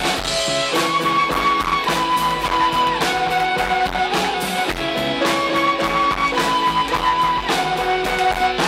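Live rock band playing an instrumental passage without vocals: electric guitar and bass over drums, with a lead line of long held notes that change about every second.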